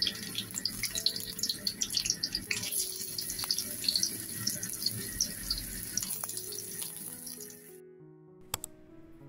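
Sliced onions sizzling and crackling in hot oil in a karahi, with many small pops. Background music plays underneath, and the sizzling cuts off about 8 seconds in, leaving the music and a couple of clicks.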